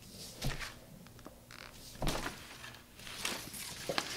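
Light table-top handling sounds: a few soft knocks and rustles as a paper reference photo is moved aside and a paintbrush works paint in a watercolour palette. The clearest knock comes about two seconds in.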